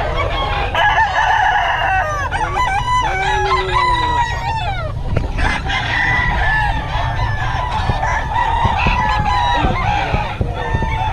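Several gamecocks crowing, their calls overlapping one after another, with some clucking, over a steady low background rumble.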